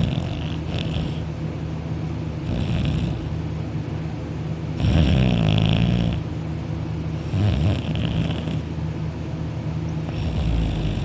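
A young man snoring in his sleep, lying on his back with his mouth open: five loud snores roughly every two and a half seconds, the loudest about five seconds in, over a steady low hum.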